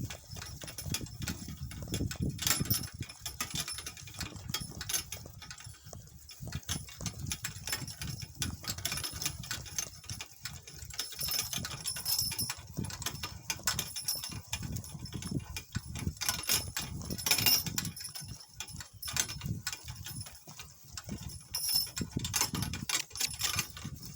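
Donkey-drawn cart on the move: an irregular run of clicks and rattles from the cart and harness over a low, uneven rumble.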